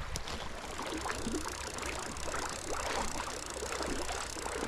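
Shallow creek water running and babbling over a gravel riffle, a steady rush with small gurgles.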